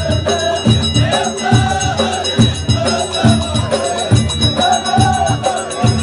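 Live folk music from a troupe: voices singing a melody over regular drum beats.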